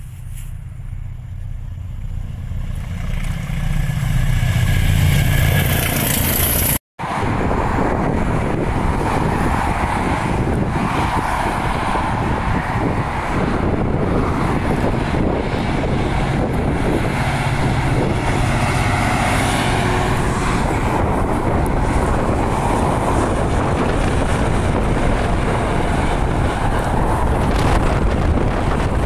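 A diesel locomotive approaching, its low rumble growing louder over the first several seconds, then cut off abruptly. After that, a steady rush of dual-carriageway traffic with cars swishing past, and wind on the microphone, while a Class 66 diesel hauls a quarry train along the line beside the road.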